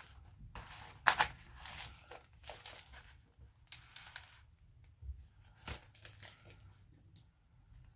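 Crinkly packaging rustling and crackling as small craft items are handled and unwrapped, in bursts over the first few seconds and then quieter, with a couple of sharp clicks, about a second in and again near six seconds.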